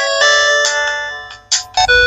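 Polyphonic ringtone melody from a Sanex SC-7090i phone's CMX sound synthesizer: chime-like synthesized notes, a few per second. One phrase fades out about a second and a half in, and the next begins.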